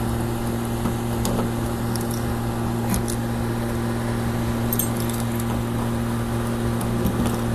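A key ring jangling while a key is worked in the trunk lock of a 1955 Chevrolet Bel Air, with scattered small metallic clicks, over a steady low hum.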